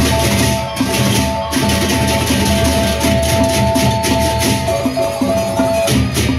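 Sasak gendang beleq ensemble playing: large barrel drums beat a steady rhythm under rapid cymbal clashing. Held high melodic notes sound over it.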